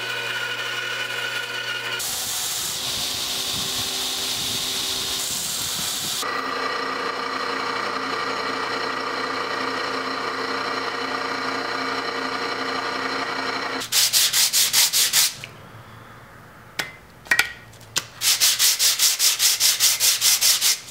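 Band saw running, then loud and even as it cuts a block of desert ironwood. Then a drill press runs steadily as it bores through the knife's tang into the clamped wooden handle scale. Near the end comes a quick back-and-forth rasp of a wooden scale rubbed by hand on sandpaper, about five strokes a second.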